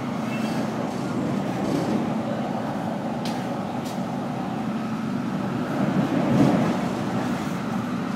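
Cabin noise inside an MTR K-stock electric train under way: a steady rumble with a constant low hum, swelling louder for a moment about six seconds in, with a couple of faint clicks.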